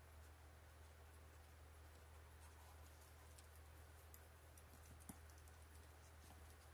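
Faint clicking of a dog's teeth chewing on a rubber Kong Widget toy, with one sharper click about five seconds in, over a low steady hum.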